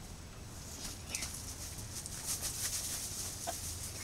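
Chickens clucking, with a spell of crackling rustle about two seconds in.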